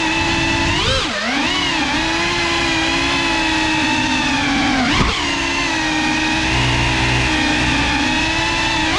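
GEPRC CineLog35 cinewhoop's brushless motors whining as it flies indoors, the pitch swooping up and down with the throttle about a second in and again about five seconds in, and holding steady in between. A short sharp tick comes about five seconds in.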